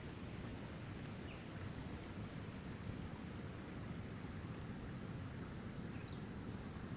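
Shallow creek running over its bed: a steady, even rush of flowing water.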